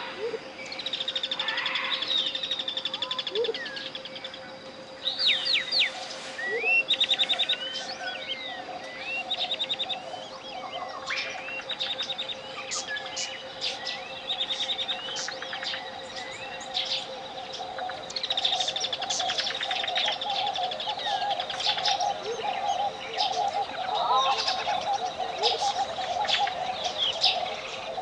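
Tropical jungle ambience: many birds chirping, whistling and trilling in quick, overlapping calls. Under them runs a steady pure 528 Hz tone with monaural beats.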